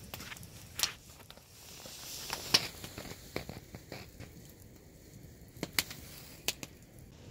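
Open wood campfire crackling, with irregular sharp pops from the burning wood; the loudest pop comes about a third of the way in.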